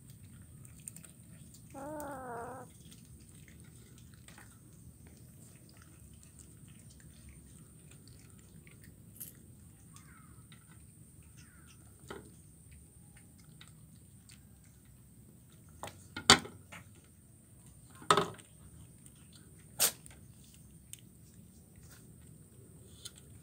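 Kitten and cat eating fish bones off a plate, with faint chewing. A short, wavering cat meow comes about two seconds in. Three sharp knocks follow in the second half, about two seconds apart.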